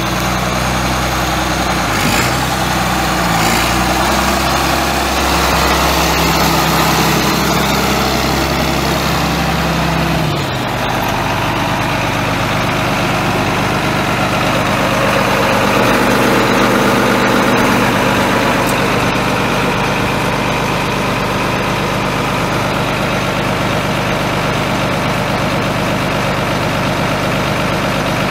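John Deere 4840 tractor's six-cylinder turbo diesel engine running at a steady idle. Its note shifts about ten seconds in and then holds steady again.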